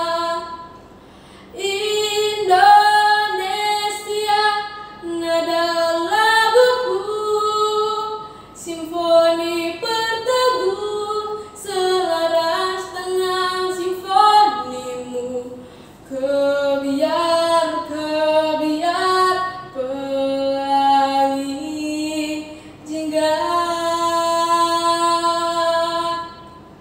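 A girl singing solo and unaccompanied, in phrases of long held notes with short breaths between them. A final long note near the end stops abruptly.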